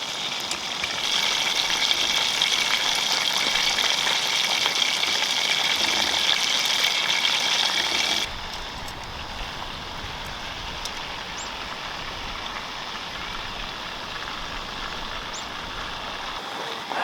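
Crumbed chicken schnitzels sizzling steadily as they fry in a pan over a campfire. About eight seconds in the sound cuts abruptly to a quieter steady hiss.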